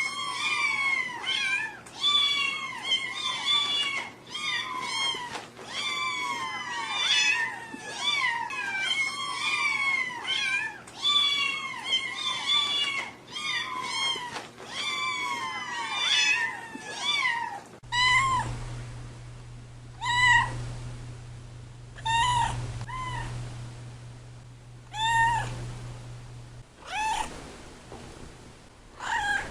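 Several cats meowing over one another in rapid, overlapping calls. About two-thirds of the way through it changes abruptly to a single cat meowing repeatedly, one meow every second or two, over a low steady hum that stops a few seconds before the end.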